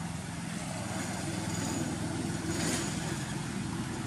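A motor engine running steadily with a low hum, with a brief hissy rustle about two and a half seconds in.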